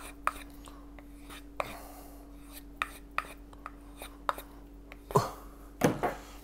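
Knife blade drawn along a hand-held strop board in separate strokes, each giving a light scrape or click. About five seconds in come two louder knocks as the knives on the cutting mat are handled.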